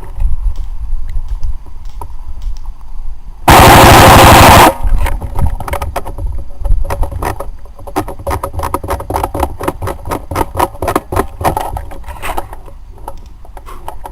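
Airsoft gun firing a full-auto burst of about a second, very loud and clipped, right at the microphone of the gun-mounted camera. Many more sharp shots and clicks follow irregularly for several seconds.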